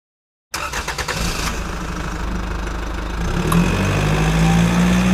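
A truck engine starting up with a short rattle of clicks, then running steadily, getting louder with its pitch rising a little about three seconds in.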